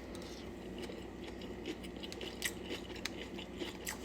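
A person chewing a mouthful of rice, with scattered small wet mouth clicks and smacks over a steady low room hum.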